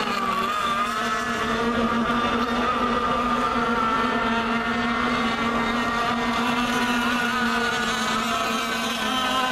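Radio-controlled racing boats running flat out, their motors making a steady buzz whose pitch dips and rises slightly as they round the course.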